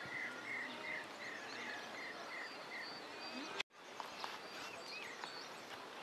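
Outdoor ambience with a small animal repeating a short chirping call a little under three times a second, which stops about two and a half seconds in. Scattered faint bird chirps sound throughout, and the sound cuts out for an instant about three and a half seconds in.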